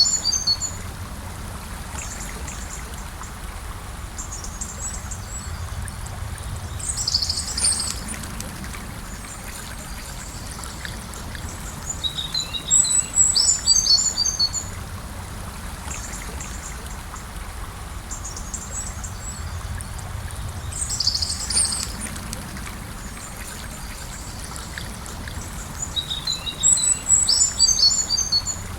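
A gentle river flowing with a steady low rush of water. Over it a songbird sings short, high phrases, one about every six or seven seconds, and these are the loudest sounds.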